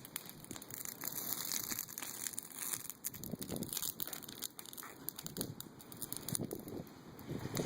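Bonfire of pruned tree branches crackling, with irregular sharp pops over a steady hiss of burning.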